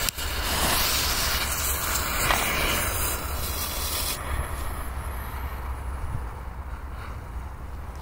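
Smoke bomb hissing as it burns, strong for about four seconds and then thinning to a softer hiss, over a steady low rumble.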